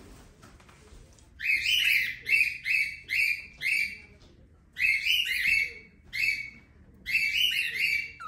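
Cockatiel calling: a quick series of short, repeated chirps starting about a second and a half in, in three runs separated by brief pauses.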